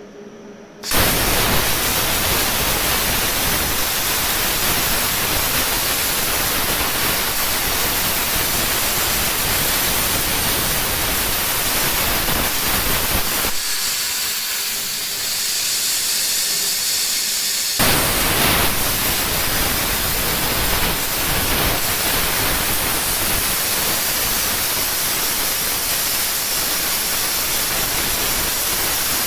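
Plasma cutter running: a loud, steady hiss of the cutting arc and air jet starting suddenly about a second in. Midway it thins to a lighter hiss for about four seconds, then comes back full with a sudden start.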